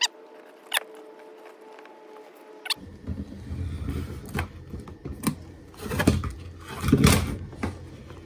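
A few sharp clicks, then a steel fish tape being pulled through a wall cavity, dragging solar cables behind it with irregular scraping and rustling that is loudest near the end.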